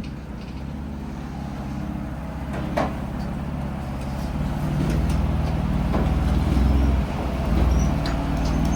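Jeep Wrangler's engine running at low speed while crawling down a steep, silty drop, with its low drone getting louder about halfway through. A few sharp knocks and clicks from the vehicle come over it.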